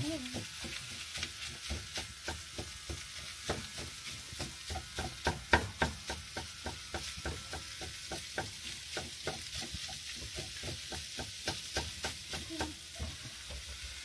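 Minced meat frying in a pan, sizzling, while a spatula scrapes and breaks it up in quick strokes, about two to three a second.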